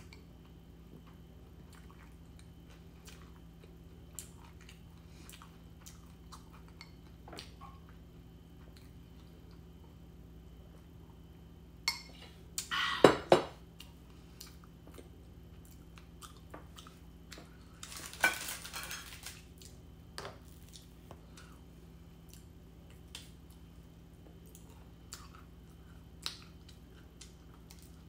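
Metal knife and fork clinking and scraping on a ceramic bowl and plate while eating, with small mouth and chewing sounds in between. There are two louder bouts of cutlery clatter, about twelve and eighteen seconds in.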